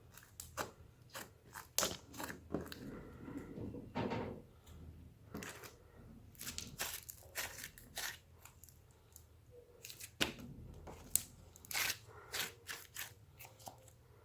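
Crunch slime packed with small styrofoam beads being squeezed and worked by hand, giving irregular crackling and popping clicks throughout.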